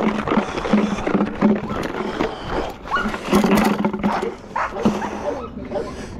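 Belgian Malinois barking repeatedly, about three barks a second, with a few sharp knocks close to the microphone.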